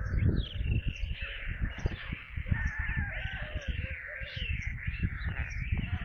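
Young white storks calling with raspy cawing sounds that waver in pitch, over many short knocks and rustles of birds pecking and stepping on the nest close to the microphone.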